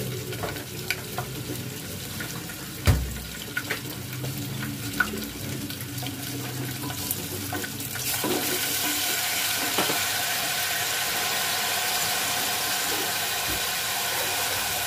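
A metal ladle clinks and scrapes in a steel cooking pot, with a louder knock about three seconds in. About eight seconds in, water is poured into the pot and a steady hiss follows.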